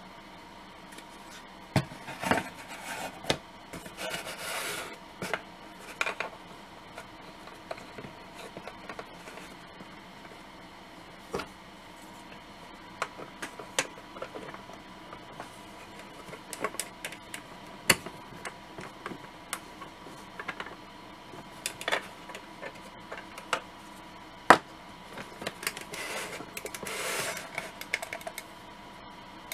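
Hands handling and turning plastic model kit parts on a cutting mat while a small paintbrush is worked over them: irregular rubbing and scratching with scattered sharp clicks and taps, one of the loudest clicks about three-quarters of the way through.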